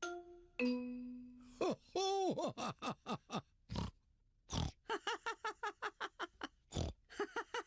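Cartoon pig characters laughing with snorts, in quick rhythmic bursts about four to five a second, after a short held pitched call near the start; a few dull thuds fall between the laughs.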